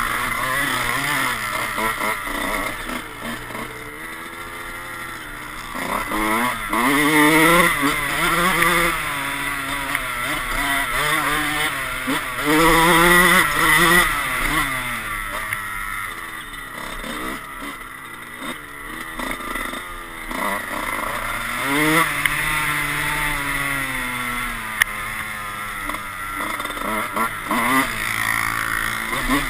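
Dirt bike engine ridden hard over a motocross track, its pitch repeatedly climbing as it accelerates and dropping back at shifts and off the throttle, loudest in two pulls about a third and half of the way through.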